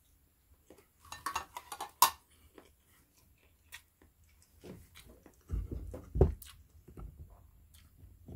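Metal fork clinking against a ceramic plate, a run of light clicks ending in one sharp clink about two seconds in. Then a few dull low thumps around six seconds in as things are set down and handled.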